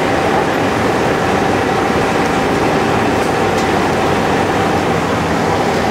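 Fire truck's diesel engine running steadily close by, with a steady whine over it.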